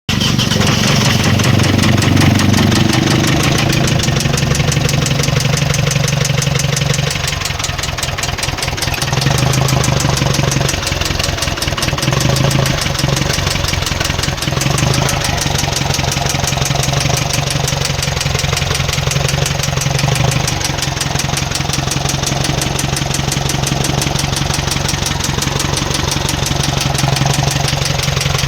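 Mitsubishi Strada's 4N15 four-cylinder turbodiesel running with a steady rapid clatter, the engine knock that is the fault under investigation. Its pitch rises and falls briefly in the first few seconds, then holds steady at idle.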